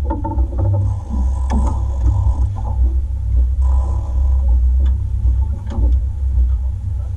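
Boat's outboard motor running steadily with a low rumble and a faint steady hum above it, with a few light clicks over it.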